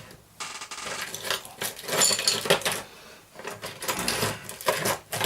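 Small metal tools and parts clattering and jingling as someone rummages through a container of tools, in two spells with a short pause between.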